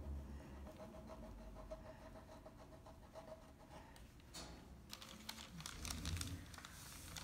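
A drawing tool scratching across paper in a run of quick strokes, starting about four seconds in, with a faint steady tone before it.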